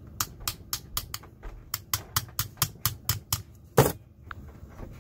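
Quick, sharp hammer taps driving down the two metal pins in the plastic base of a G8 LED bulb: about a dozen taps, roughly four a second, then one louder knock near the end.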